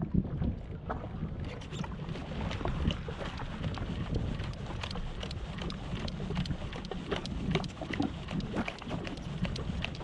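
Small choppy waves slapping and splashing against the hull of a drifting jet ski, with many short irregular splashes over a steady wash of water, and wind buffeting the microphone.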